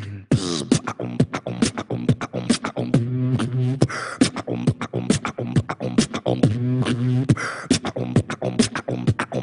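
Beatboxing: a fast, steady rhythm of mouth-made drum hits with a low hum under them.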